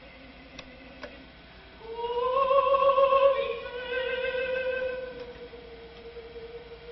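An operatic soprano sings one long held note. It enters about two seconds in, swells, dips slightly lower and fades away near the end. Before it comes the faint tail of a lower note and two faint clicks.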